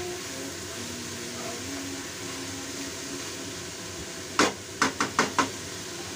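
A wooden spatula knocked about five times in quick succession against the rim of a stainless steel wok, a little past the middle, over a steady hiss of frying.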